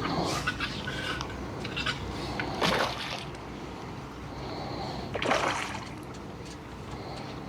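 Light splashes on the water surface, three of them about two and a half seconds apart.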